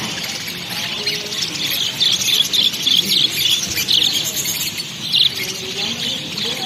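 Small birds chirping: a run of short, high chirps, several a second, over a steady background hum of noise.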